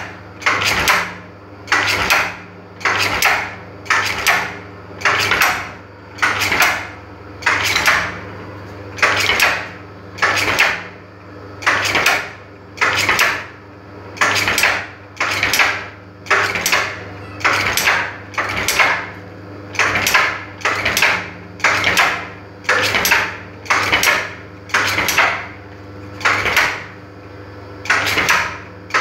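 Brush tufting machine running, its head driving tufts of bristles into a drilled wooden brush block. Each stroke makes a clattering burst, a little more than one a second in an even rhythm, over a steady motor hum.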